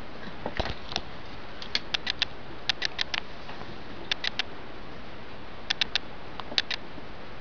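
Pet mice moving about in their cage make short runs of three or four quick, sharp clicks, one run roughly every second, over a steady hiss.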